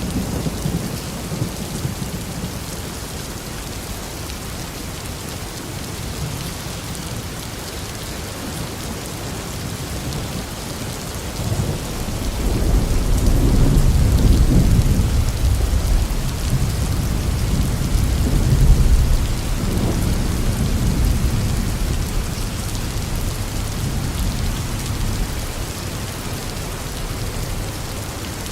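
Steady heavy rain with a long roll of thunder that swells up about twelve seconds in, peaks twice and fades away over some ten seconds.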